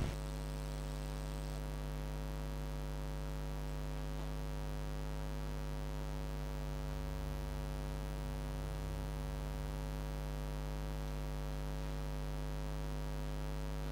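Steady low electrical mains hum with a buzzy edge from many evenly spaced overtones, unchanging in level.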